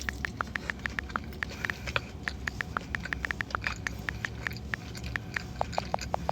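Open-mouthed chewing of chicken wings close to the microphone: a fast run of short mouth smacks and clicks, several a second.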